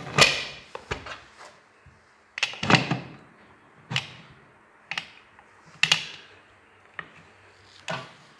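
Aluminium pressure-cooker lid being fitted and twisted shut on the pot: a series of sharp metal clanks and knocks, about one a second, as the lid is worked round to lock.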